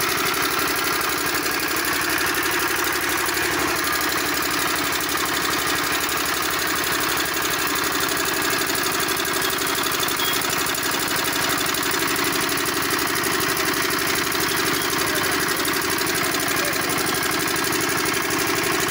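Comet Type 5 HP single-cylinder diesel pumpset engine running steadily at an even speed, its rapid firing beats unchanged throughout.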